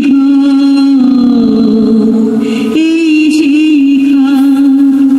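Background music: a held, chant-like vocal melody over a steady drone.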